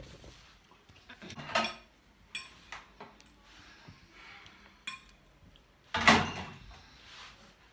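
Knife and fork scraping and clicking against a ceramic plate as food is cut, with a few sharp metallic ticks. A louder knock comes about six seconds in.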